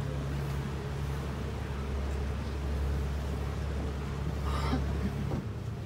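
Canal tour boat's engine running with a steady low hum under the rush of water and air. The engine note changes near the end.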